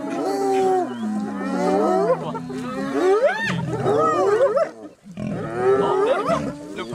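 Spotted hyenas mobbing a lioness at a kill: many overlapping rising and falling yelps and whoops, with the lioness growling low underneath. There is a brief lull about five seconds in.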